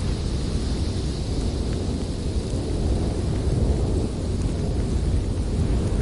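Blizzard wind blowing hard in uneven gusts, a deep continuous rumble with a fainter hiss above it.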